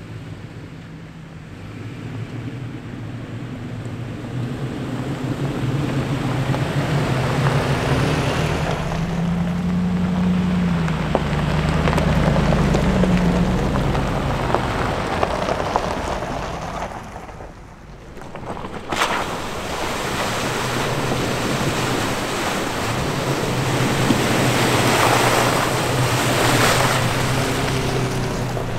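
Off-road vehicle engine running under a loud rushing noise that swells and fades. The engine pitch climbs about ten seconds in, and the noise briefly drops away about eighteen seconds in before building again.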